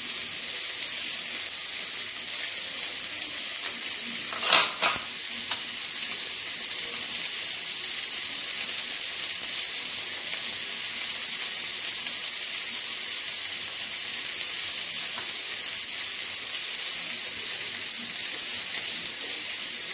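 Small onions (shallots) frying in oil in a pan, a steady sizzle. Two brief knocks a little past four seconds in.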